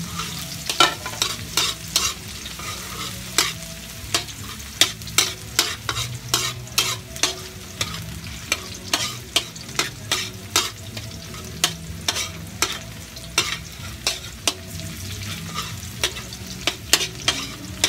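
Onion and garlic sizzling in hot oil in a large metal wok, being sautéed: a metal spatula scrapes and taps the wok about every half second over the steady sizzle.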